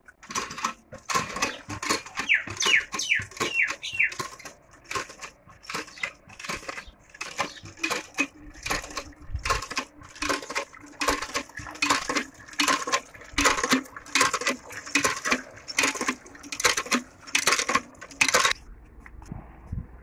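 Hand water pump worked in quick strokes: repeated metallic clanks about twice a second, with a few short falling squeaks around two to four seconds in. The clanking stops shortly before the end.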